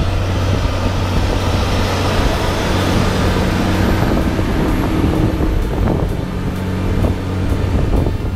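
Case Puma 165 tractor's six-cylinder diesel engine running steadily under load, a constant low drone, with a few knocks and rattles in the second half.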